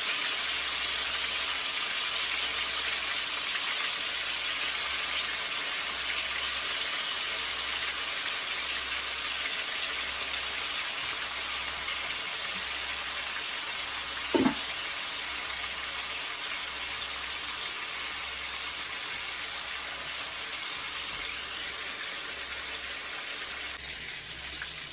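Chicken back browning in hot oil in a pot: a steady sizzle that slowly eases off, with one short knock about midway.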